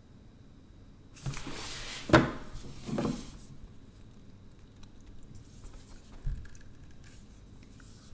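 Handling noise from working an LG G5 smartphone's detachable bottom battery module: rustling with two sharp plastic knocks a second or so in, then a few faint clicks and a single knock near the end, as the module fails to come off.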